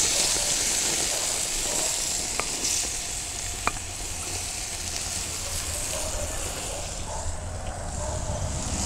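Flat iron steaks sizzling on a hot gas grill grate, just basted with salted butter. The hiss is steady and eases off near the end, with two light ticks a few seconds in.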